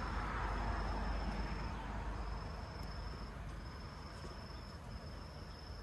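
Insects trilling at a steady high pitch in long stretches with brief gaps. Underneath is a low rushing noise that is strongest at first and fades over the first couple of seconds, which the grower takes for rain approaching.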